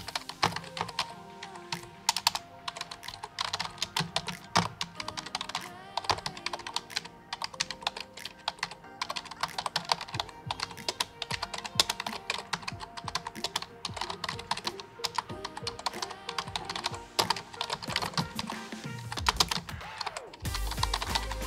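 Fast, irregular keystrokes typing on a computer keyboard, over background music; the music's deep bass is absent at first and comes back about a second before the end.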